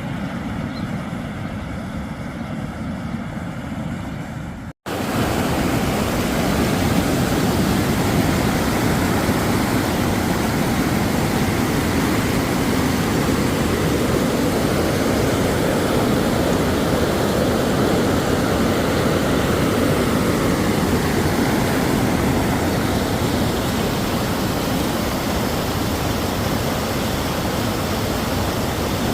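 Waterfall rushing with a steady roar. After a cut about five seconds in it is louder and fuller.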